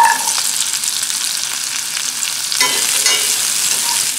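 Sweet potato cubes sizzling in hot butter in a cast-iron skillet, with a steady hiss. Right at the start a handful of cubes drops into the pan and the sizzle jumps louder; later the cubes are stirred around the pan with a utensil.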